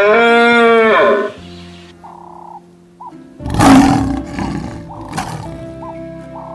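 A cow's moo ends about a second in, then a lion roars loudly about three and a half seconds in, fading over a second or two, over background music.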